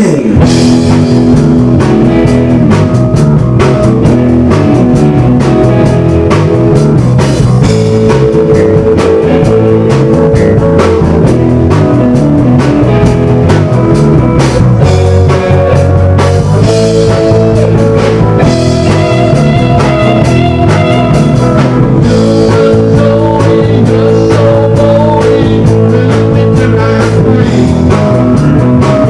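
Loud rock music with electric guitar and a drum kit, playing steadily.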